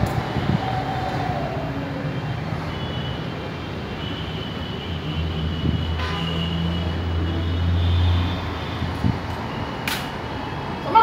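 Steady outdoor background din, mostly distant traffic, with a low engine hum that swells in the middle and fades, and a single sharp knock near the end.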